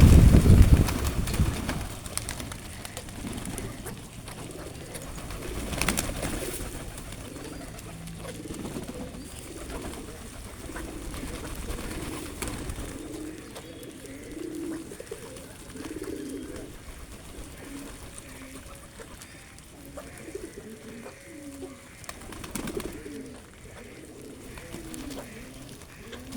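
Pigeons cooing, with repeated low calls through most of the stretch. A loud burst of noise comes right at the start.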